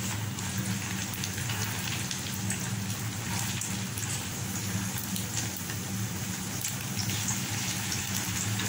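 Chicken noodle kebabs frying in oil on a flat tawa: a steady sizzle with many small pops, over a low steady hum.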